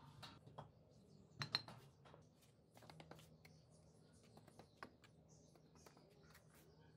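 Faint, scattered taps and scrapes of bricks and a mason's trowel in wet mortar, with one sharper knock about a second and a half in, over a low steady hum.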